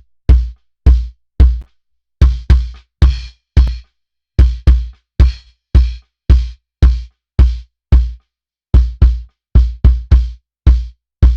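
Kick drum heard alone through its inside microphone, single and doubled hits about two a second with short pauses. Each hit has a deep boom and a clicky beater tap, the tap lifted by a mid-range EQ boost on the vintage Sphere console channel.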